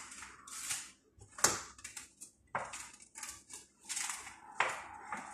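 Plastic cling wrap being pulled off its roll and stretched over a bowl, crinkling in irregular bursts with a few sharp snaps.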